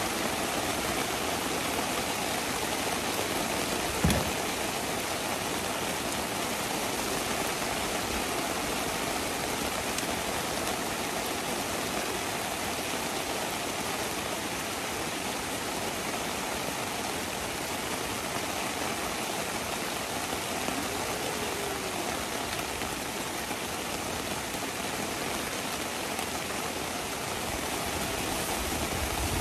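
Heavy rain falling steadily, an even rushing hiss, with a single knock about four seconds in.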